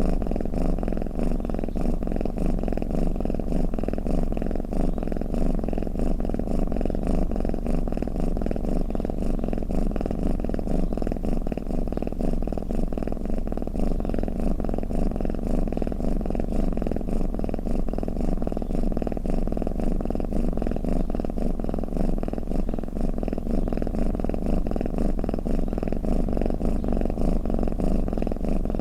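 Domestic cat purring: a steady, rapid, pulsing rumble that keeps on without a break.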